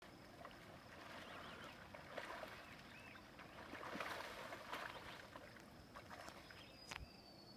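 Faint splashing of large carp thrashing at the surface in shallow water, loudest about four seconds in, as carp do when getting ready to spawn. A sharp click comes near the end.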